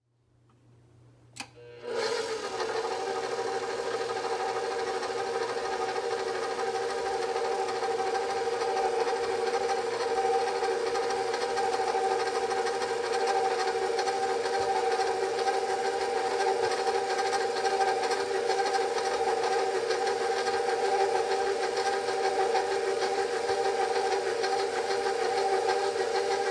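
Stand mixer motor running steadily at low speed, turning a dough hook through dry flour. It starts about two seconds in, just after a single click.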